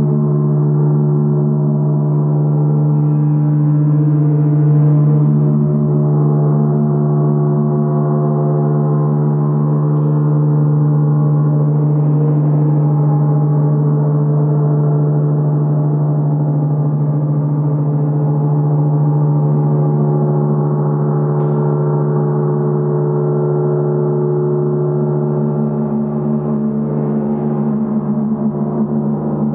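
Large gong played continuously with a mallet, a steady dense wash of overlapping ringing overtones over a strong deep hum. A few light strikes stand out, and near the end the deep hum begins to pulse.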